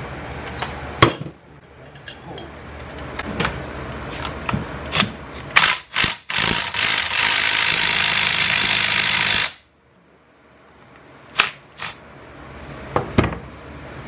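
Impact wrench run for about three seconds on a nut of a Yamaha Blaster's clutch-side engine case, cutting off suddenly. Metal tools click and clink before and after.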